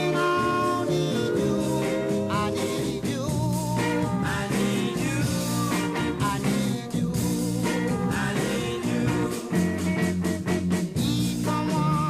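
A vocal-group song playing from a 45 rpm single: singing over guitar, bass and drums with a steady beat.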